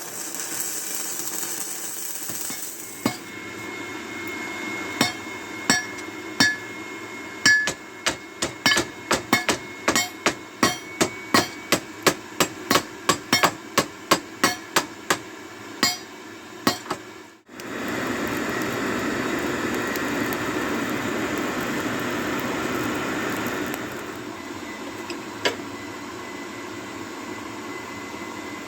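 Hand hammer striking steel on an anvil, a long run of quick blows at about two a second with a light metallic ring. After a cut it gives way to a steady rushing noise.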